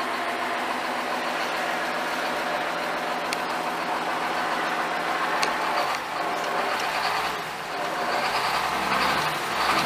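John Deere 7320 tractor's 6.8 L six-cylinder turbo diesel running, mostly steady, with a slight change in its sound in the second half.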